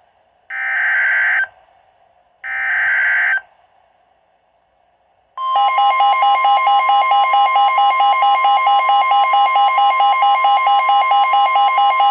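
Emergency Alert System SAME header: two short, harsh digital data bursts about a second long and a second apart. About five seconds in the loud EAS attention signal starts, a steady two-tone alarm with a fast flutter, announcing a new weather warning.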